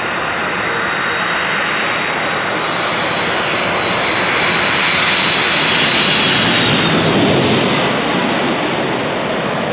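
Airliner on landing approach passing low overhead: the engine noise grows louder to a peak about seven seconds in, with a high whine that drops in pitch as it goes over, then fades.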